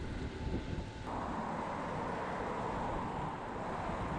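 Wind rushing over the microphone of a camera on a moving bicycle, mixed with tyre and road noise. About a second in the sound changes abruptly, the low rumble dropping away and a steadier hiss taking over.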